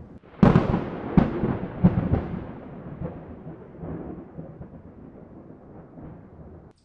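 Close thunder: a sudden clap with several sharp cracks in the first two seconds, then a rolling rumble that slowly fades. It cuts off abruptly near the end.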